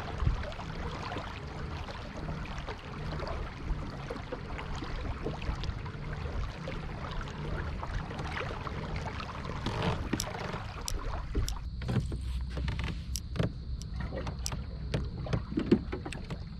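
Water sounds around a Native Titan fishing kayak moving on the lake, over a low steady rumble. Sharp clicks and knocks come through in the second half.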